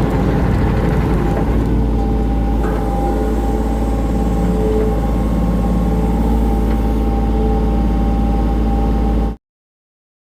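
Hitachi ZX35 mini excavator's diesel engine running steadily with a deep hum and a steady hydraulic whine over it; the sound cuts off suddenly into silence near the end.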